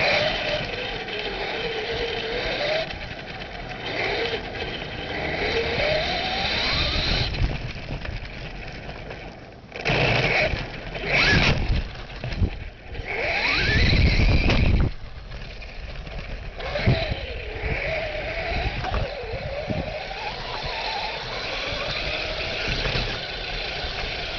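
Traxxas Stampede 4X4 VXL electric RC truck driving, heard from a camera mounted on it: the motor's whine rises and falls with the throttle over tyre and drivetrain noise and jolts on rough ground. Louder rough stretches come about ten and fourteen seconds in.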